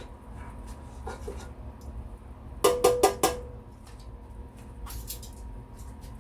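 Metal clinking against the air fryer basket while chicken pieces are turned: four quick ringing clinks about two and a half seconds in, with a few softer knocks before and after.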